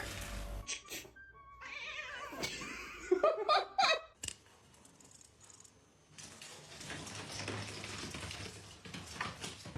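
Domestic cat meowing, a few short meows close together about three to four seconds in.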